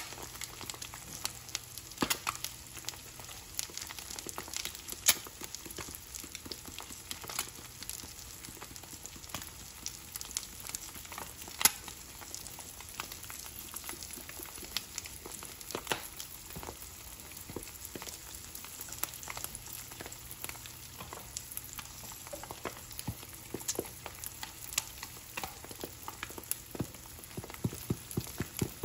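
A goose egg frying in fat in a nonstick skillet, sizzling steadily with scattered sharp crackling pops, which come thicker near the end.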